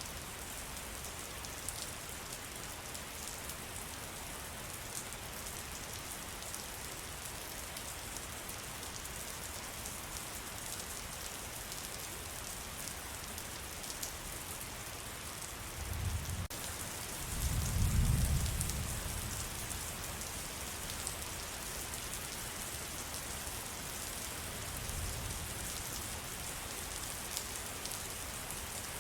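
Steady rain falling in a forest: an even hiss scattered with small drop ticks. A low rumble swells and fades about halfway through.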